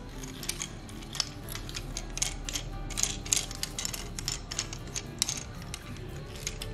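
Plastic joints and parts of a Transformers Optimus Prime action figure clicking and snapping as it is handled and transformed: a string of sharp irregular clicks, busiest about halfway through.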